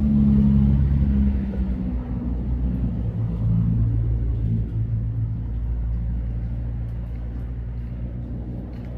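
An engine running steadily at low revs: a deep rumble with a steady low hum, a little louder in the first second or so.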